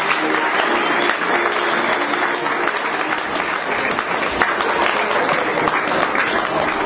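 Audience applauding steadily: dense clapping without a break.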